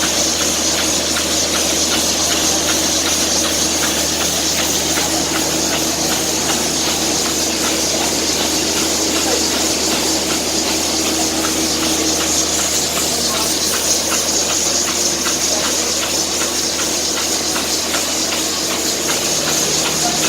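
Biomass flash dryer plant running steadily: a constant machine hum with steady tones under a strong airy hiss, the sound of the blower and air-and-material flow.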